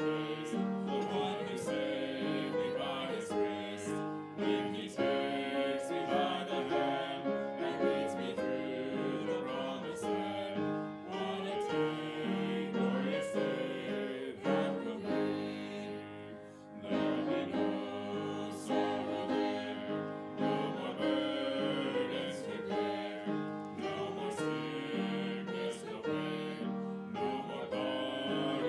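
Church offertory music led by piano, playing on with a brief dip in level about sixteen seconds in.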